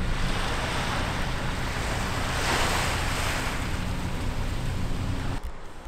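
Small waves washing onto a sandy beach, with wind on the microphone; the wash swells up about halfway through and cuts off suddenly near the end.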